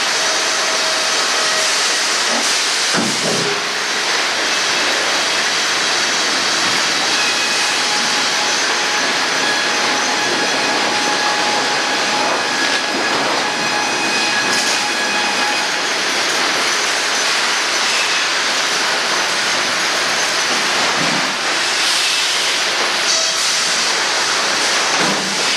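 Sawmill machinery running: a loud, steady mechanical din with faint, thin whining tones over it.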